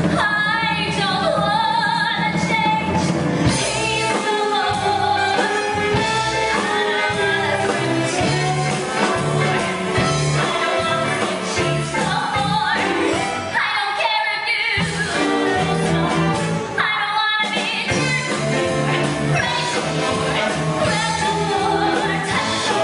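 Live stage performance: a group of singers with women's voices singing a number, accompanied by a live band.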